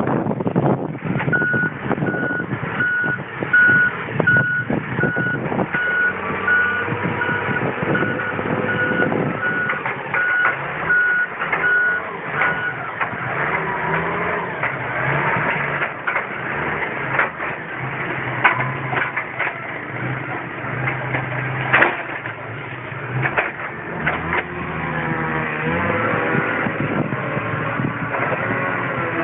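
New Holland wheel loader with a forestry grapple working: its diesel engine running under load and changing pitch, with a reversing alarm beeping about once a second for the first twelve seconds or so. Sharp knocks and cracks of wood being handled come through the engine noise.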